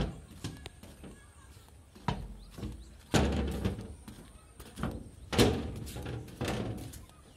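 Footsteps of someone walking on a railway track's ballast and sleepers, with handling noise on a phone microphone: about six irregular thuds and crunching, rustling bursts. The two strongest come about three and five and a half seconds in and last about a second each.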